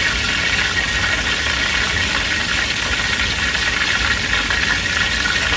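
Tilapia frying in hot oil in a pot on an outdoor propane burner: a steady sizzle over the burner's low roar.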